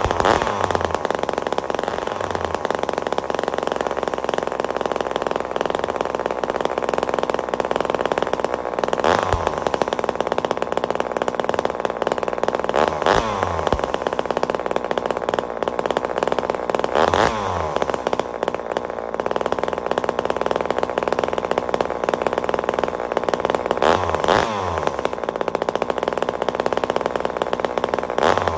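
Vintage Homelite XL-76 two-stroke chainsaw running on half choke just after a cold start, the saw having sat unused for a couple of months. Its engine speed falls away and picks back up several times.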